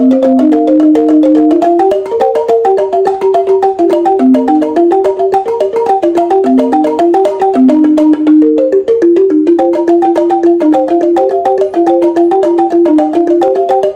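Tuned bamboo instrument playing a melody of held notes that move step by step, with a higher line of notes sounding over the lower one.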